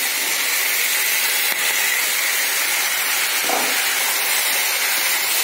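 Vegetables sizzling steadily in hot oil in a kadai as fried cauliflower florets and potato pieces are added to the pan.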